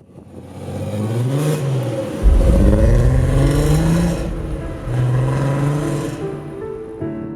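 Car engine revving, its pitch climbing and falling back three times, with a heavy low rumble from about two seconds in.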